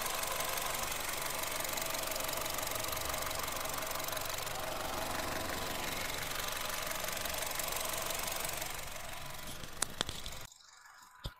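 Honda City's 1.5-litre four-cylinder petrol engine idling steadily, heard up close from the engine bay; the seller calls it very smooth. A couple of sharp clicks come just before the sound cuts off abruptly about ten and a half seconds in.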